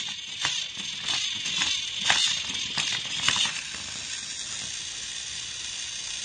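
Battery-powered plastic toy trains clicking and rattling with irregular sharp clicks for about three and a half seconds. After that only a steady hiss remains.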